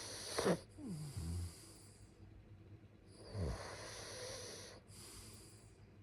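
A sleeping person snoring through two breaths. The loudest is a short low snore that drops in pitch about half a second in, followed by a breath out. A softer snore comes about three and a half seconds in, with a longer breath after it.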